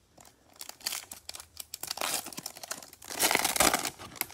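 Foil wrapper of a Topps Chrome Update baseball card pack being crinkled and torn open by hand. The crackling starts about half a second in and is loudest in a long rip from about three seconds to nearly four.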